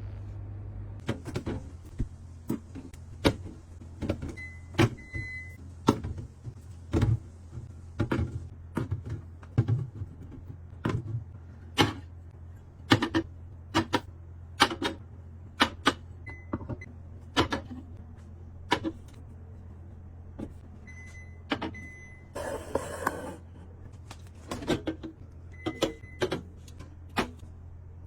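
Containers and bottles being set down and arranged inside a refrigerator: a long series of sharp clicks and knocks, roughly one a second, over a steady low hum. A brief rustle of packaging comes a little after two-thirds of the way through.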